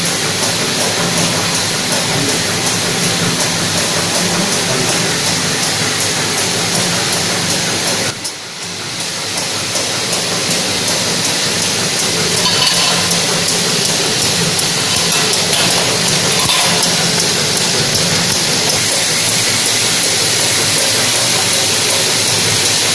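Four-track tablet strip packing machine running: a loud, steady mechanical hiss, dipping briefly about a third of the way in.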